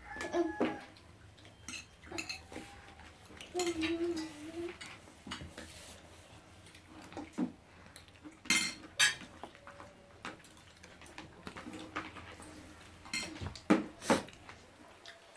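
Cutlery clinking and scraping against plates during a meal: scattered sharp clinks, the loudest coming in the second half.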